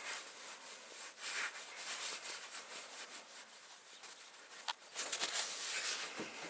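A screwdriver and gloved hands scrape and rustle at a worm-drive hose clamp on a tractor's air intake hose. There are a couple of sharp clicks near the end as the clamp comes loose and the hose is pulled.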